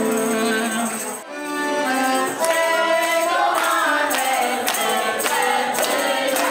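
Live folk-dance band playing: accordion and clarinet with a tambourine jingling. A held chord breaks off a little over a second in, and the band goes into a quick melody.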